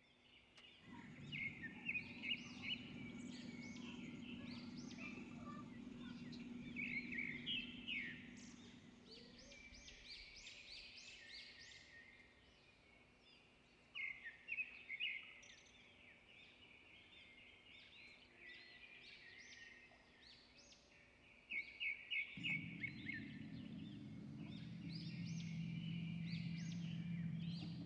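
Small songbirds chirping in quick repeated trills, phrase after phrase, over a low steady background hum that fades out partway through and comes back near the end.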